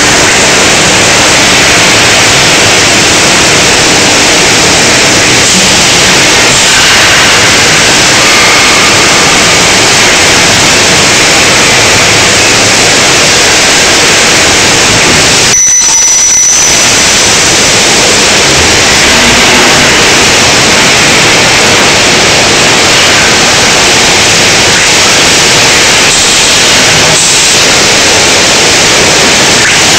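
Loud, steady, harsh noise of a steel tube mill running, with a short drop-out about halfway through.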